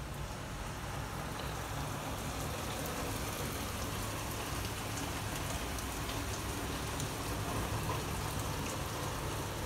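Heavy rain mixed with hail: a steady hiss of rain, with scattered small ticks of hailstones striking.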